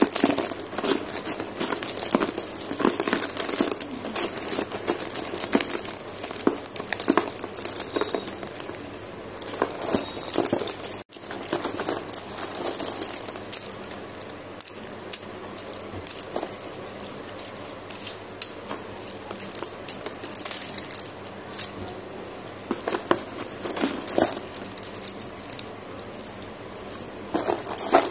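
Slate pencil sticks clicking and clattering against one another as hands stir and scoop through a box full of them, a dense, irregular rattle that cuts out for an instant about eleven seconds in.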